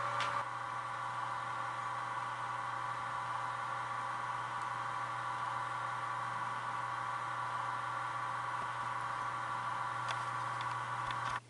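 Märklin H0 model train running on the layout's track: a steady whirring hum from the locomotive's motor and wheels, which cuts off suddenly at the very end.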